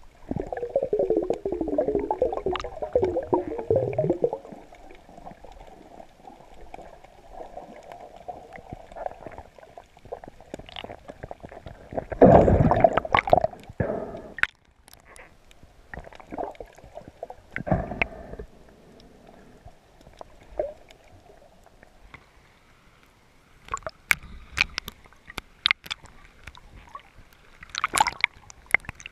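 Water heard through an underwater camera: muffled gurgling and bubbling, with a few louder surges of water. Near the end, sharp splashes and crackles as the camera comes up to the surface.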